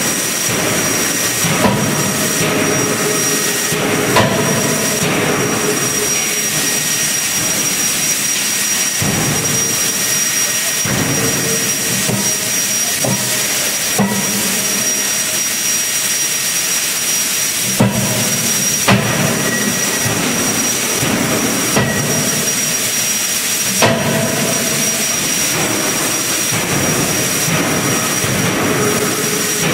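CNC fully-hydraulic die forging hammer striking a red-hot workpiece in closed dies: several sharp blows at uneven intervals over steady loud machine noise with a thin high whine.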